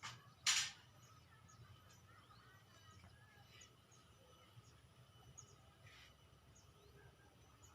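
Faint outdoor ambience with scattered short bird chirps, and one brief loud swishing noise about half a second in.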